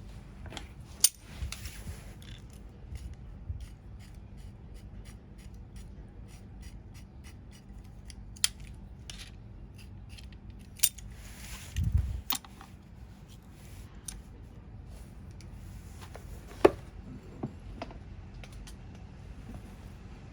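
Metal tools and engine parts clicking and clinking as a motorcycle engine is taken apart, with a run of small clicks and several sharp metallic clanks, the loudest about a second in and again near 17 seconds. There is a dull low thud near the middle.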